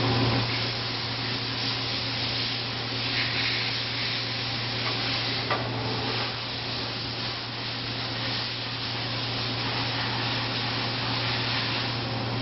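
Mazak Mazatech V10 vertical machining center running with a steady low hum while its automatic tool changer cycles. There are mechanical shifting noises, and a sharp click comes about halfway through.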